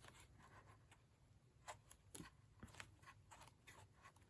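Near silence with a few faint, brief rustles and clicks of an old book's paper pages being turned by hand.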